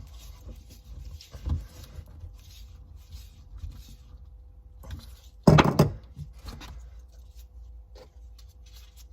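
Small scattered clicks and rustles of screws being tightened and fittings handled on the tubing of a replacement diesel-heater fuel pump, over a low steady hum.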